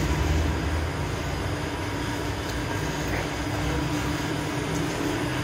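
Large stainless-steel bakery bread oven running: a steady machine drone with a constant hum.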